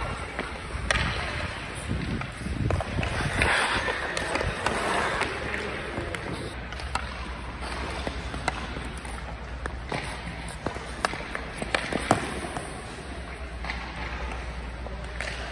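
Ice-hockey sticks clacking against a puck and the ice, with skate blades scraping on the ice. Scattered sharp clacks sit over a steady low hum.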